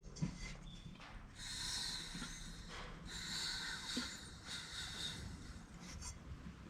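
Two bursts of hissing spray, the first short and the second about two seconds long.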